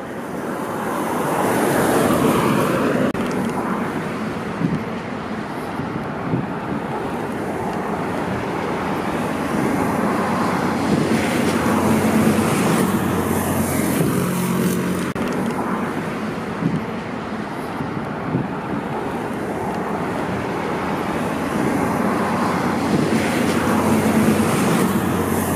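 Road traffic: cars passing on the road alongside, the sound swelling and fading as each one goes by.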